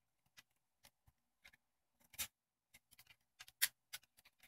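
Faint, scattered small clicks and ticks of a thin metal pry tool working against the plastic housing of a Nikon Coolpix L820 camera, the two loudest about two and three and a half seconds in.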